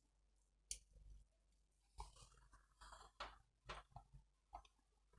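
Faint small clicks and handling rustle of the PC case's front-panel connector plugs being pushed onto the motherboard's header pins, several short clicks between about two and four and a half seconds in.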